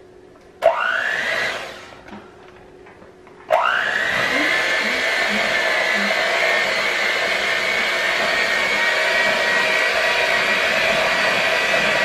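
Electric hand mixer beating cake batter in a bowl. It starts with a rising whine about half a second in and winds down a second or so later, then starts again a few seconds in and runs steadily.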